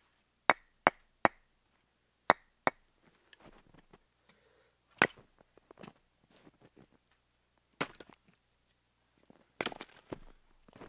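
Axe chopping wood: five sharp strikes in about the first three seconds, then a few more single knocks. Softer scuffs and crunches between the strikes, footsteps in snow.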